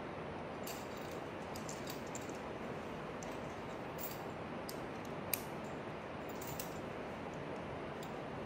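Scattered light metallic clicks and jingles of climbing gear, carabiners and quickdraws knocking together, with one sharper click about five seconds in, over a steady hiss of outdoor background noise.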